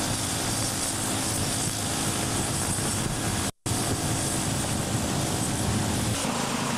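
Steady engine and road noise from vehicles driving fast along a gravel road, a riding lawn mower among them. The sound cuts out for a split second about three and a half seconds in.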